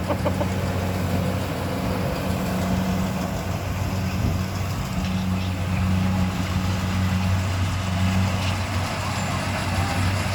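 Rice harvesting machine's engine running steadily: a constant low drone with machinery noise over it.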